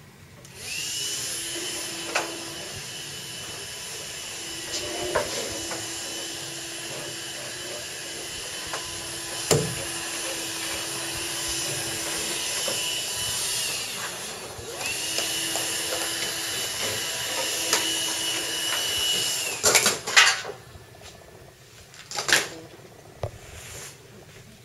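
A handheld power tool's motor runs steadily with a high whine for about fourteen seconds, stops for a moment, then runs again for about five seconds, with scattered clicks and knocks over it. A few sharp knocks follow after it stops.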